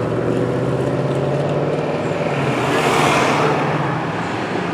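Street traffic: a steady engine hum, with a car passing that swells and fades about three seconds in.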